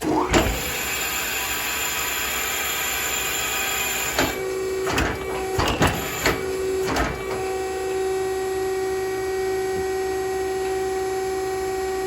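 A machine running with a steady hum that starts abruptly, with several sharp knocks and clicks about four to seven seconds in.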